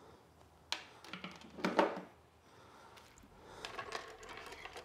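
Soft clicking of typing on a laptop keyboard, with a few louder knocks and rustles in the first two seconds.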